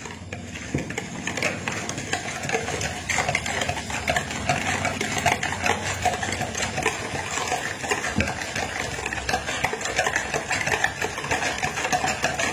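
A whisk beaten rapidly in a plastic bowl of pancake batter: a steady run of quick scraping and clicking strokes against the bowl.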